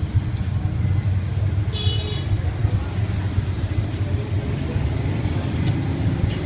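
Steady low rumble of passing street traffic, with a brief high-pitched tone about two seconds in and a couple of faint light knocks near the end.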